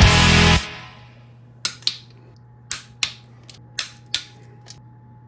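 Background rock music cuts off just after the start. Then come sharp metallic clinks of hand tools on motorcycle parts, about seven in rough pairs, over a low steady hum.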